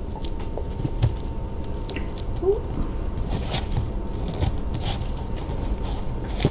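Kittens playing with a felt basket, knocking it about and tipping it over: scattered light knocks and scuffs over a steady low hum, with one short rising squeak about two and a half seconds in.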